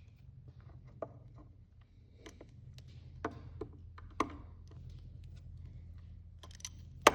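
Scattered light clicks and taps of a hand crimping tool and wire connector being handled while a terminal is crimped onto a wire, with one sharper click near the end, over a faint steady low hum.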